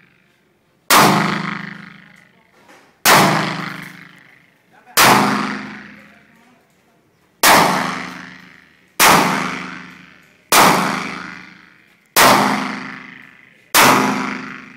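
Armscor M1911 pistol in .22 TCM firing eight single shots, spaced about one and a half to two and a half seconds apart. Each sharp report echoes and fades over a second or so.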